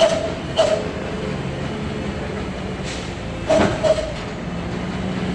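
Bus running steadily, with two pairs of short horn toots: one pair at the start and another about three and a half seconds in.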